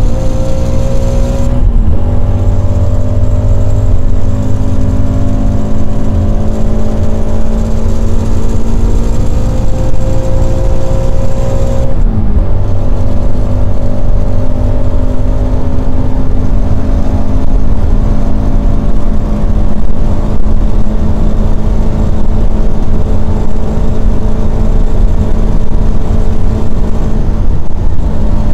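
Toyota GT86's FA20 flat-four engine at full throttle, heard from inside the cabin, its pitch climbing steadily with quick upshifts about one and a half seconds in and again about twelve seconds in, then holding high revs in fifth gear.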